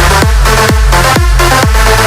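Electronic dance music with a steady kick drum, about two beats a second, over a sustained bass line.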